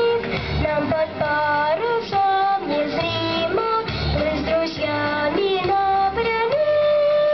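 A girl singing a song with musical accompaniment, holding long notes.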